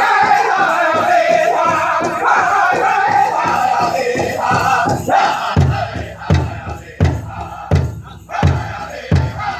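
A powwow drum group singing a contest song in high, strained voices over a big drum. A little over halfway through, the singing thins and the drum strikes heavy, even beats about one and a half per second.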